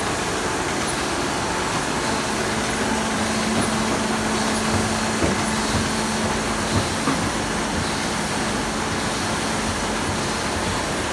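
Paper fly-leaf folding machine running with a steady mechanical whir and hiss. A low hum comes in about two seconds in, and a few light knocks fall near the middle.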